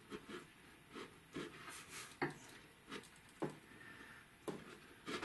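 Hand wood chisel paring across the grain, a faint series of about ten short scraping cuts at an irregular pace, as wood is pared out for a shallow recess.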